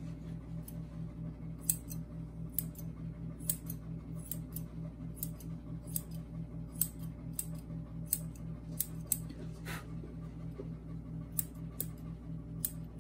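Grooming shears snipping the face hair of a toy poodle puppy: short, crisp snips at an uneven pace, a few each second at times, over a steady low hum.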